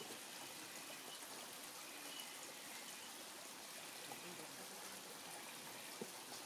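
Faint steady hiss of outdoor background noise, with one soft knock about six seconds in.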